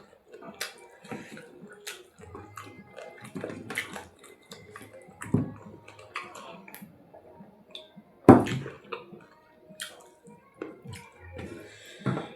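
Close-up eating sounds of chicken curry: irregular chewing and mouth clicks, with one louder knock about eight seconds in.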